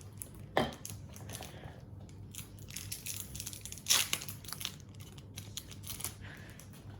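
Pokémon trading cards being handled and laid down: scattered rustling and light clicks, with two sharper clicks about half a second and four seconds in.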